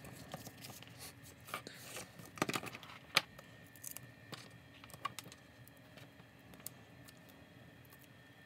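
Faint light taps, clicks and short paper rustles of hands handling card and pressing small foam adhesive pads onto a paper label, with one sharper click about three seconds in.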